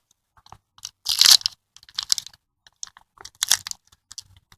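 Sticky rubber tire-repair plug strips being pulled apart and out of a plug kit: irregular crackling and rustling, with louder crackles about a second in and again past the middle.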